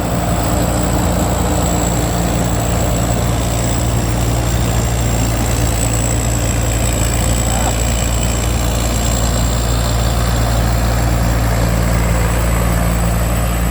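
Somboon Pattana rice combine harvester running steadily while harvesting, a constant low engine drone with a thin high whine held above it.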